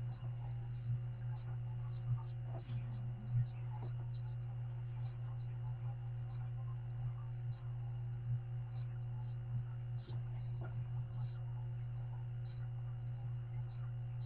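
Steady low electrical hum, with faint scattered ticks and knocks.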